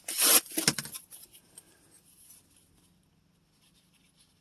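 GPCA bolt-action pen writing on paper: loud, scratchy strokes in about the first second, then fainter scratching that fades away.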